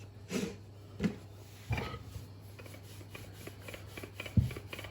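Wooden rolling pin rolling out floured naan dough on a board: a soft rubbing scrape with a few knocks, the loudest near the end.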